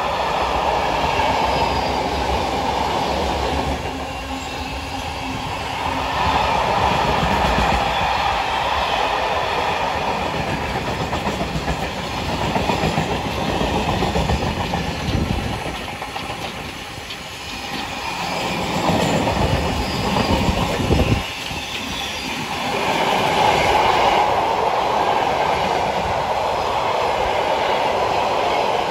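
Freight train of loaded car-carrier wagons rolling past close by: a continuous rumble and rattle of wagon wheels with clickety-clack over the rail joints, swelling and easing as different wagons go by.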